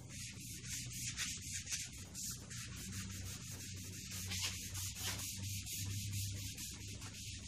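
Blue shop towel wiping wood stain onto a wooden board: a steady run of quick back-and-forth rubbing strokes, several a second, of cloth dragging over the wood's surface.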